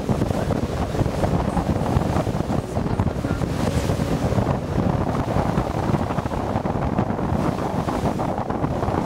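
Wind buffeting the microphone on the open deck of a boat under way, over the rush of the sea.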